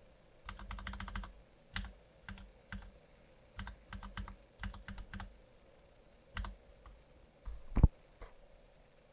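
Typing on a Logitech K845 mechanical keyboard with TTC Brown switches: a quick burst of keystrokes, then single, irregular key presses, and one louder knock near the end.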